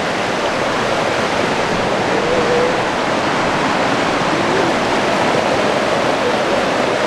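Shallow mountain stream rushing over smooth rock slabs and small cascades: a steady, even rush of water.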